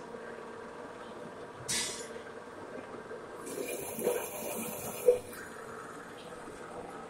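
Drilling machine working holes in a coolant-wet steel channel: a steady machine hum, a short hiss about two seconds in, then a longer hissing spell from about three and a half to five seconds that ends in a sharp knock.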